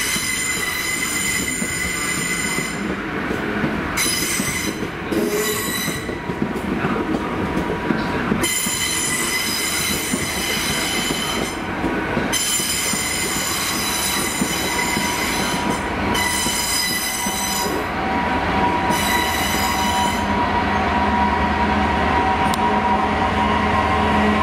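Train wheels squealing on curved track, a high squeal with many overtones that comes and goes. From about two-thirds through, a Class 66 diesel locomotive's two-stroke V12 engine drones, growing louder as it approaches hauling a container freight train.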